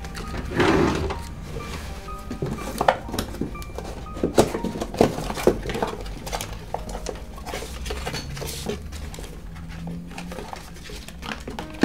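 A wooden dresser drawer is pulled open, then a cardboard shoebox inside it is handled, its lid lifted and its contents rummaged, with a string of sharp clicks and knocks. Quiet background music plays underneath.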